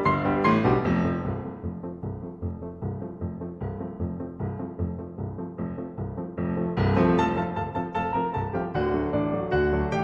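Background piano music with a steady beat, thinning out in the middle and growing fuller again about seven seconds in.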